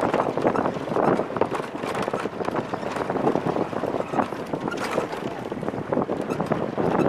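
Wind buffeting the microphone of a camera held out of a moving safari van's window, mixed with the van's rumble over the dirt ground, as an uneven, fluttering noise that keeps going without a break.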